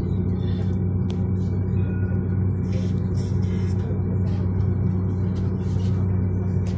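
Steady low hum of a moving tram heard from inside the car, with a sharp click about a second in and another near the end.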